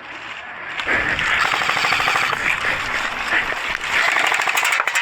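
Airsoft guns firing rapid full-auto bursts, a fast stream of sharp clicks that starts about a second in and keeps going, with a few sharper cracks near the end.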